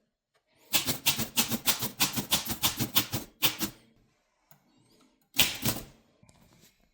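Remington Portable 480 typewriter being typed on: a quick run of key strikes, about five a second for some three seconds, then after a pause one louder clatter near the end.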